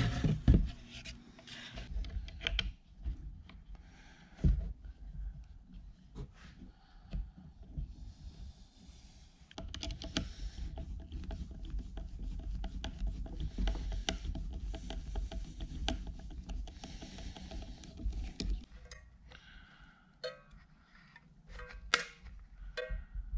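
Hands working plastic parts of a solar flood light and a screwdriver against a painted wooden bracket on a workbench: irregular clicks, knocks and rubbing, with a longer stretch of scraping in the middle.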